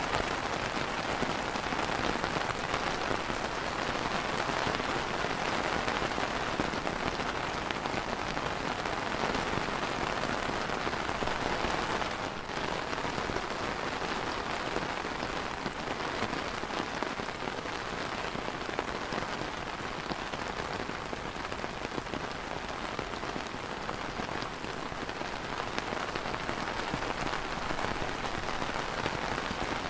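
Rain falling steadily on a clear plastic umbrella canopy, a dense even hiss of many small drop hits. It dips briefly about twelve seconds in and runs a little softer after.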